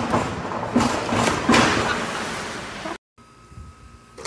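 A diver's splash into an indoor pool, echoing in the hall, loudest about a second and a half in and fading to a steady wash. It cuts off abruptly about three seconds in, followed by quieter background.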